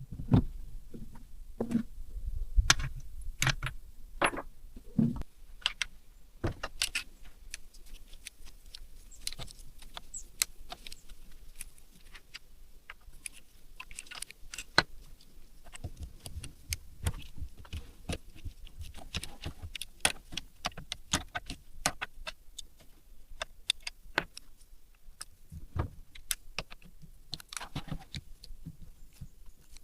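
Irregular sharp clicks and light metallic clinks of hand tools and small engine parts being handled, with a few dull knocks near the start.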